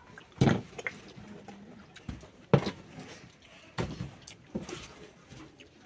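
A few sharp knocks and clatters. The loudest come about half a second in and about two and a half seconds in, with lighter ones around four seconds.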